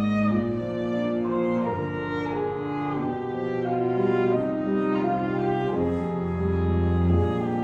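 Violin and cello, with piano, playing a slow, smooth melody in long held notes.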